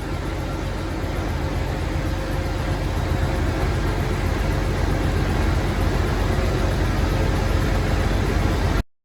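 Massey Ferguson 1105 tractor's six-cylinder diesel engine running steadily with a low rumble, growing slightly louder, then cutting off suddenly near the end.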